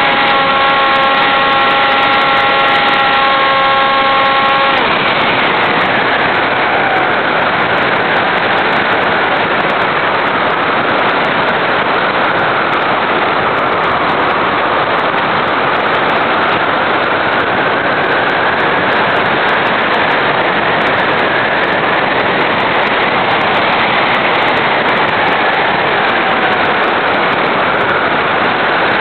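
RC airplane's motor and propeller whining at a steady pitch, heard from on board, cutting off about five seconds in as the throttle comes off. After that, loud wind rush over the airframe as it glides, with a faint tone drifting slowly up and down.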